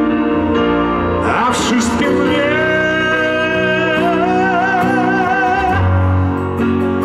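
Live pop song through a stage PA: a male singer holds one long high note with vibrato for several seconds over guitar and backing accompaniment.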